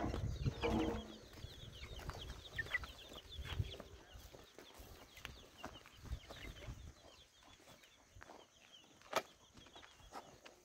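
Chickens clucking and chirping, with many short high chirps in the first few seconds that thin out later. There is a low rumble in the first half and one sharp knock about nine seconds in.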